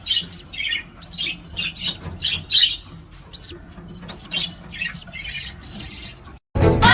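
Parrot squawking in a rapid string of short, shrill calls. It stops abruptly near the end, and loud music starts.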